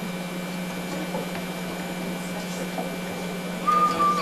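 Live club stage between songs: a steady low electrical hum over faint room noise. Near the end a single high note is held for about half a second.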